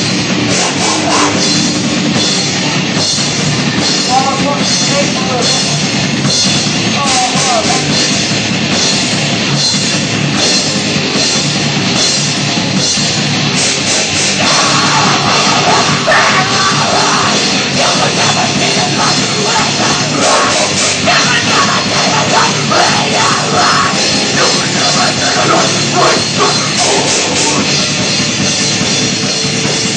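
Live heavy rock band playing loud and continuously, with a drum kit driving a steady beat and cymbal hits.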